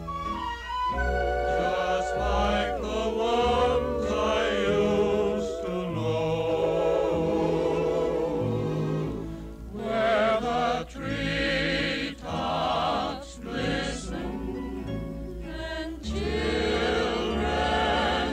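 Choral music: a choir singing long, sustained notes with vibrato over instrumental accompaniment.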